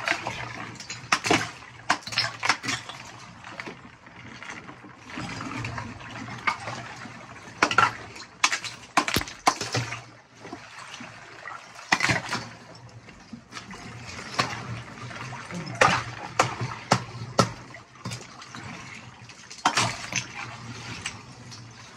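A claw hammer breaking chunks of ice in a chest freezer filled with water: repeated sharp knocks and clinks at irregular intervals, over sloshing water.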